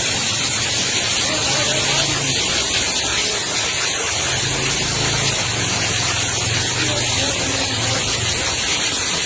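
Steady hiss of heavy rain and running rainwater, with low voices murmuring underneath.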